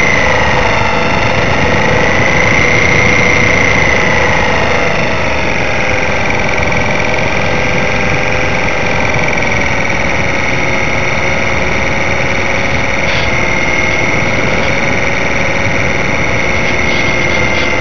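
RC Super Cub model plane's motor and propeller running steadily in flight, heard from a camera on board: a whine that wavers slightly in pitch over a rush of wind noise.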